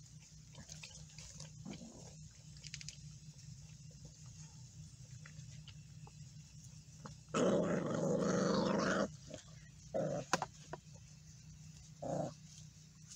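Pit bull puppies growling as they eat together from one food bowl. One loud snarl lasts nearly two seconds about seven seconds in, and two shorter growls follow over the next few seconds.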